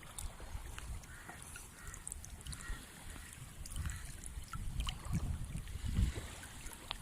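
Water splashing and dribbling as a fishing net is worked, with uneven low rumbles that are loudest about five and six seconds in, and scattered small clicks.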